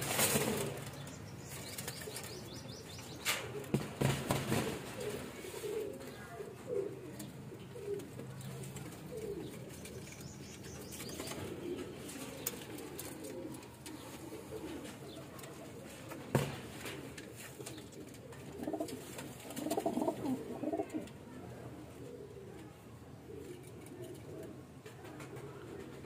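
Domestic pigeons cooing over and over in a loft, with a few sharp knocks or wing flaps: one near the start, two around three to four seconds in, and one around sixteen seconds in.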